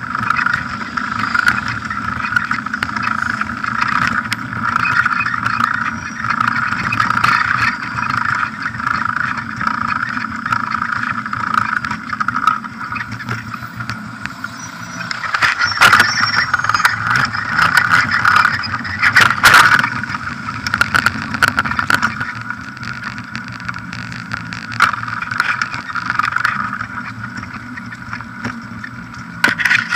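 Bicycle riding over paving slabs on knobbly mountain-bike tyres, picked up by a camera mounted on the bike: steady wind and tyre noise with rattles, and a few sharp knocks from bumps about halfway through.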